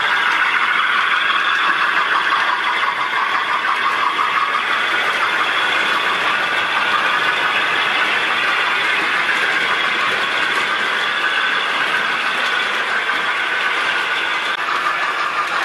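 Model railway trains running along the layout's track, a locomotive and its coaches passing close by: a steady whirring of small electric motors and wheels on the rails.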